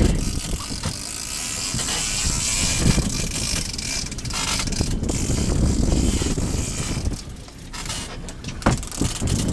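Wind rushing over the microphone with a low rumble from the fishing boat at sea, and a few sharp clicks near the end.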